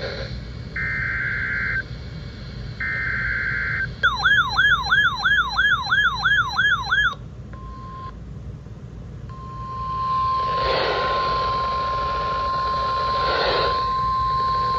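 NOAA Weather Radio emergency alert tones: the last SAME data-header bursts, each a harsh buzzing tone about a second long, then a warbling alarm tone of fast repeating pitch sweeps for about three seconds, then the steady 1050 Hz warning alarm tone, briefly at first and then held from about nine seconds in, with a rough hiss under it for a few seconds.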